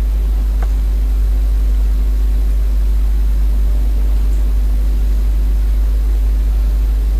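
Steady, loud low hum with a faint even hiss, unchanging throughout: a constant background drone in the recording, also present under the narrator's voice.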